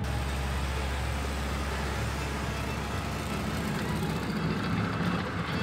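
Kubota compact tractor's diesel engine running steadily as it tows a PTO-driven rotary slasher cutting grass.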